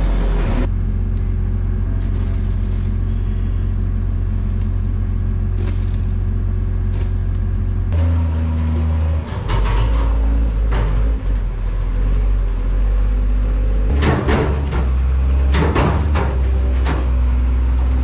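Diesel engine of a New Holland wheel loader running steadily under load, a deep drone throughout. Several clanks and rattles come near the end as the loader works the straw bale.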